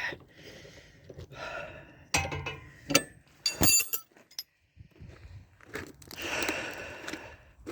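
A few sharp metallic clinks and knocks, one with a short ringing about three and a half seconds in, among soft rustling and shuffling.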